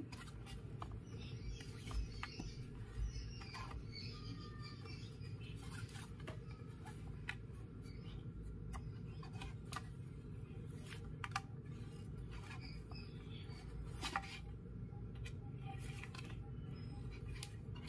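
Faint rustling and light ticks of macrame cord being pulled and tied into square knots, the cord brushing over the wooden plates, heard now and then over a steady low hum.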